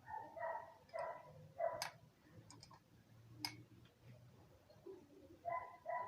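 A dog barking in two quick runs of three short, high yaps, one right at the start and one near the end. A few sharp metallic clicks fall in between.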